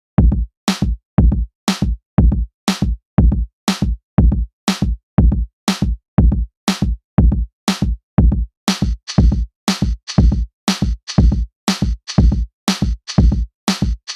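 Background music with a steady, heavy beat, about two beats a second; a hissing high layer joins about nine seconds in.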